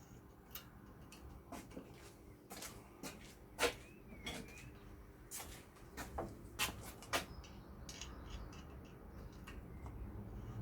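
Scattered light clicks and taps of small hard objects being handled, irregular, with the loudest tap about three and a half seconds in.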